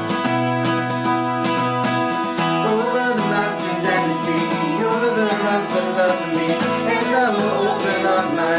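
Live acoustic guitar strumming over low bass notes, with a voice starting to sing about two and a half seconds in.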